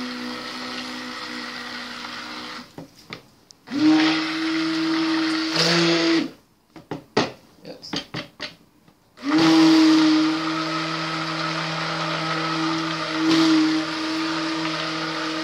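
Immersion stick blender running in a plastic bucket of cold-process soap batter, blending oils and lye solution toward trace. It runs steadily, stops about two and a half seconds in, runs again for about two seconds, pauses amid a few light knocks, then starts again about nine seconds in and keeps running.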